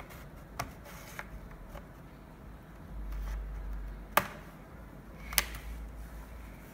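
Plastic card pried along the case seam of an Acer Aspire E5-573G laptop, giving a few light clicks and then two sharp snaps, about four and five and a half seconds in, as the case's plastic retaining clips pop loose.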